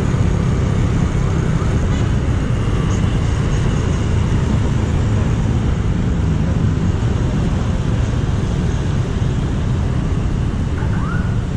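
Motorcycle engine running steadily while riding, heard from the bike itself, with street traffic around it.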